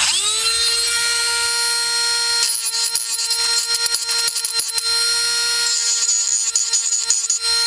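Small high-speed electric power tool spinning up, running at one steady high pitch with a scratchy grinding noise as the bit works the die-cast post of a toy car body, then winding down near the end. The post is being relieved before it is tapped for a screw.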